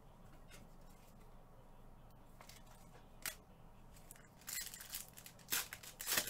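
Foil wrappers of Prizm basketball card packs crinkling as they are picked up and handled: a single rustle about three seconds in, then a cluster of louder crackling rustles in the last two seconds.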